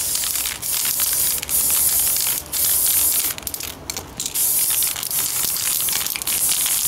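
Aerosol spray paint can hissing in a series of bursts about a second long, with brief breaks between them, as paint is sprayed into a steel helmet.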